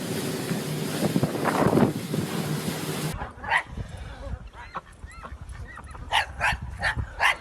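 A steady rushing noise cuts off about three seconds in. A dog follows with a couple of high whimpering calls, then a quick run of four short, sharp yips near the end.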